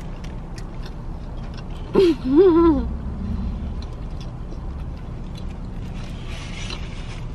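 Small wet clicks of someone chewing fried chicken over a steady low hum inside a car. About two seconds in comes one short hummed 'mmm' that rises and falls in pitch, the sound of someone enjoying the food.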